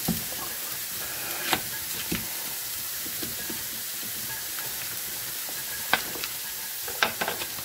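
Diced red onion sizzling steadily in a frying pan. A few sharp knocks of a knife cutting through a block of butter and striking a wooden cutting board, the clearest about six and seven seconds in.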